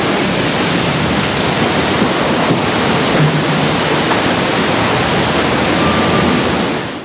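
Loud, steady rushing of churned water after a cargo ship's sideways launch into a canal, as the launch wave surges across the water; it stops abruptly at the very end.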